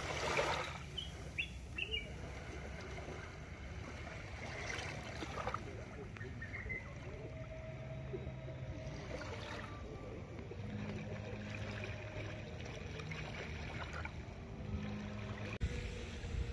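Small waves lapping on a sandy shore, with a low steady hum underneath and a few faint bird chirps in the first couple of seconds.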